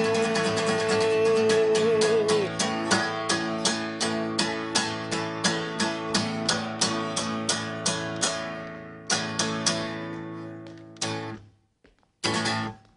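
Acoustic guitar strummed fast and steadily, with a long held note over the first couple of seconds. The strumming thins out after about eight seconds into a few separate closing strums, the last one near the end.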